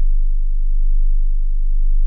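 Hearing-test tone: a steady, very low pure tone around 50 Hz that swells slightly in loudness about once a second.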